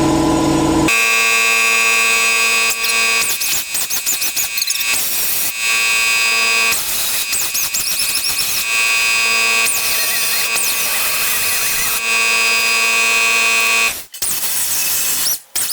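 Pneumatic cutoff wheel spinning with a high, steady whine, run in several bursts of one to three seconds while cutting sheet metal.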